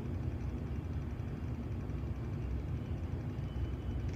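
Steady low rumbling noise with a faint hum, and no speech or alert tones.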